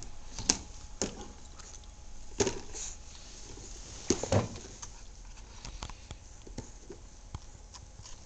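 Scattered light knocks and clatters of a plastic toy doll stroller being handled and pushed by a toddler. The loudest come about half a second in, around two and a half seconds, and as a pair just after four seconds.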